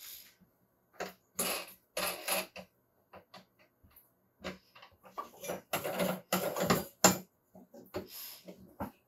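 Irregular knocks and short clatters of hard objects being handled and set down. They are sparse at first and come thicker past the middle, with the sharpest knock a little after seven seconds.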